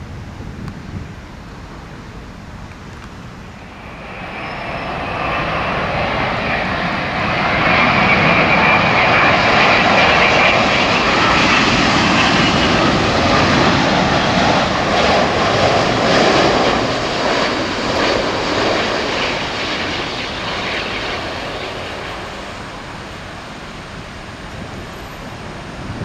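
Low wind rumble at first, then a Boeing 787 airliner's jet engines on final approach: their roar swells from about four seconds in, peaks as the plane passes, and slowly fades as it heads down to the runway.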